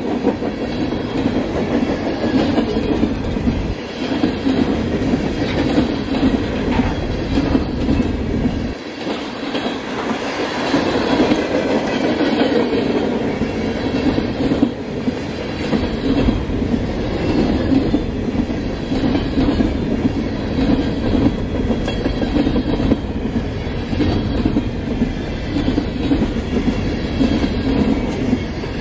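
Freight train of flatcars carrying open-top containers rolling past, with a steady rumble of wheels on rail and clattering over the rail joints.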